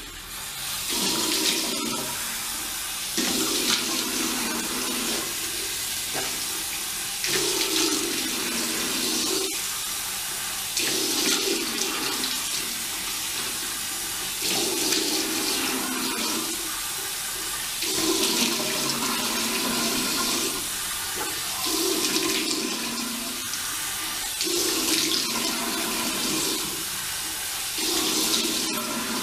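Tap running into a sink while hands scoop water and splash it onto the face to rinse off cleanser, a splash about every three to four seconds over a steady flow.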